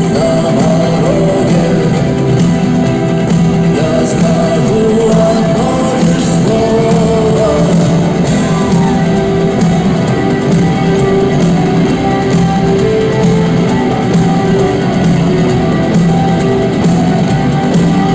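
Live rock band playing a song with electric guitars, drums and singing, loud and continuous, as heard from the audience at a concert.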